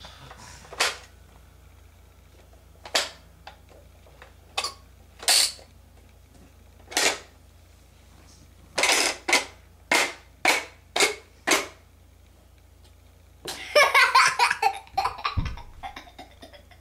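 About a dozen short, sharp smacks at uneven spacing, several in quick succession around the middle. Then a louder burst of a child's high-pitched squealing and a low thump near the end.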